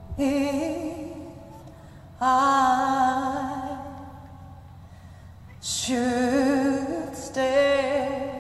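A woman singing slow, held phrases alone, with no accompaniment and strong vibrato. Four phrases begin about two seconds apart, and each note rings out in the hall's reverberation.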